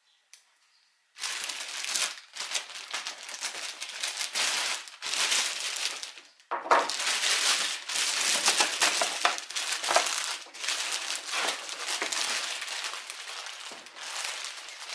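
Plastic or paper packaging being crinkled and crumpled by hand as it comes off the figure's box: a dense, irregular crackling that starts about a second in and goes on without pause.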